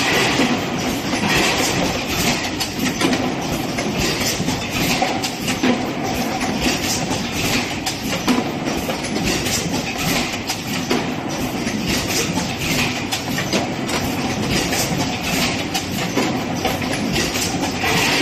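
Fully automatic PET bottle blow-moulding machine running in production, a steady mechanical clatter with a hiss recurring every two to three seconds.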